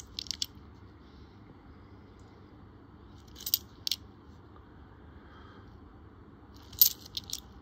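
Australian one-dollar coins clinking against each other as they are handled. The clinks come in three short clusters: at the start, about three and a half seconds in, and near the end.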